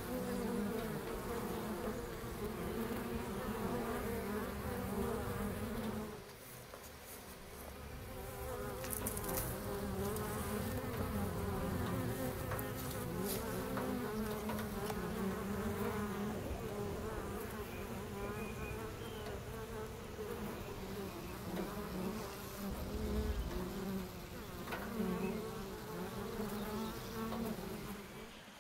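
Honey bees buzzing in a mass around an opened hive: a steady drone that wavers in pitch, dipping briefly about six seconds in before carrying on.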